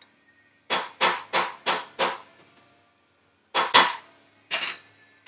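Hammer striking a socket used as a bearing driver, tapping a new wheel bearing into a motorcycle wheel hub: sharp metallic strikes, five in a quick run, then a pause and three more.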